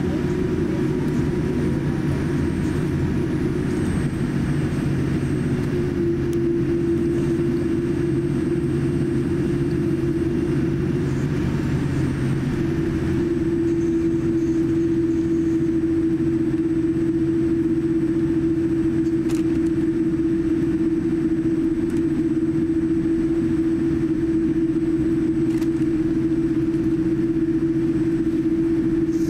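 Cabin noise of a Boeing 787-9 airliner taxiing: a steady low rumble with one clear, steady hum tone running through it, a little louder in the second half.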